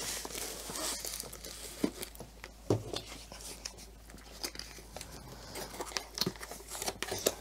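Soft crinkling of plastic packaging, with scattered light taps and clicks, as diamond painting kit contents are handled and packed back into their box.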